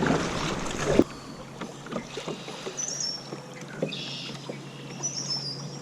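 Noisy rushing and splashing of river water around a kayak, with some wind. About a second in, it cuts abruptly to a much quieter background with a few light knocks and faint high chirps.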